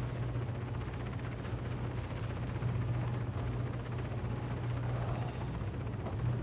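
Steady low mechanical drone with an even noise wash over it.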